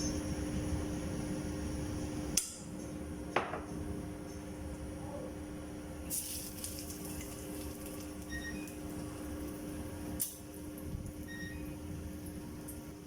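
Steady mechanical kitchen hum, with a few sharp clinks and knocks of pots and utensils, one about two seconds in, one ringing briefly about three seconds in, and another about ten seconds in.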